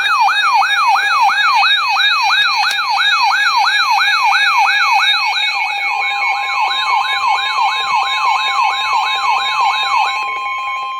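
Electronic siren in a fast yelp, its pitch sweeping up and down a few times a second over steady tones. The sweeping stops about ten seconds in, leaving a steady tone.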